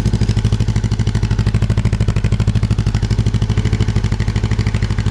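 Honda CBR motorcycle engine idling steadily through an exhaust fitted with a dB-killer baffle that has six holes drilled in it, giving an even exhaust pulse of about ten beats a second.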